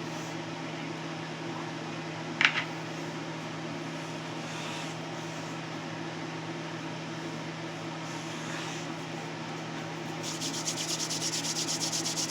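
A steady background hum, with a single click about two and a half seconds in. Near the end comes a quick, even run of scraping strokes, a knife trimming the excess pie crust dough from the edge of the dish.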